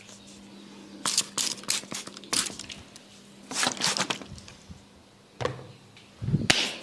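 Hands working on a person's head in a barber's head massage: an irregular series of short, sharp taps and rubs on the head and hair, with a louder, heavier stroke near the end.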